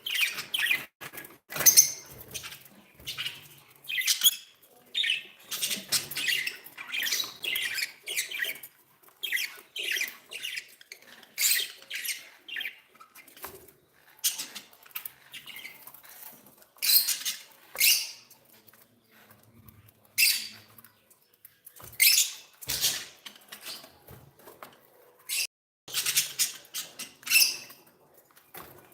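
Budgerigars chirping and chattering in short, high-pitched calls that come in quick irregular runs with brief pauses between.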